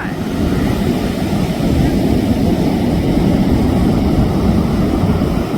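Air show aircraft flying over in close formation: a loud, steady engine rumble that starts abruptly and holds.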